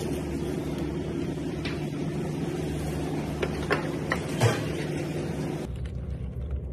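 Steady low machine hum with several light knocks and clatters, the sharpest about four and a half seconds in. Near the end the hiss drops away, leaving a low pulsing hum.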